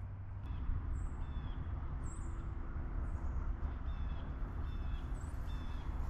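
Small songbirds giving short, high call notes over and over, about one to two a second, over a steady low rumble.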